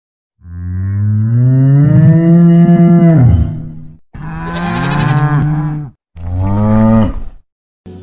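Cattle mooing: three long, deep moos, each starting and stopping abruptly.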